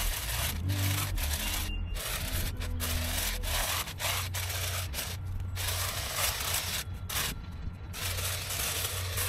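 Cordless long-reach hedge trimmer cutting low into brambles and hedge growth, a rasping buzz that breaks off and starts again several times, with background music underneath.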